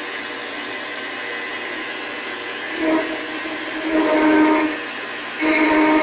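Metal lathe running with a steady hum while the cut on the metal bar squeals in three pitched bursts, each about half a second to a second long, in the second half.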